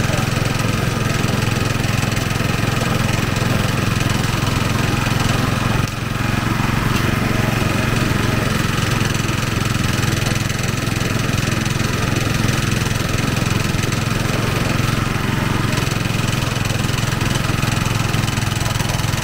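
Motor-driven sugarcane juice press running steadily, its rollers crushing cane stalks being fed through.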